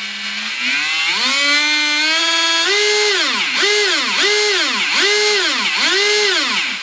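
A 10.5-turn Leopard Hobby brushless motor spinning its pinion and spur gear, driven by a NOSRAM Matrix Power Reverse speed controller. Its whine climbs in steps over the first couple of seconds, then the throttle is blipped up and down about five times, and the whine cuts off near the end.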